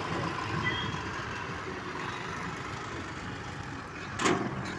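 Steady road-traffic noise heard from a moving motorcycle riding behind a lorry: an even rumble of engines and tyres, with a short loud burst about four seconds in.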